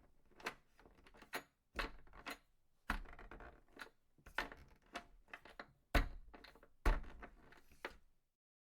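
A series of about a dozen irregular knocks and clatters, each sharp with a short ringing tail, in a small room; they stop about eight seconds in.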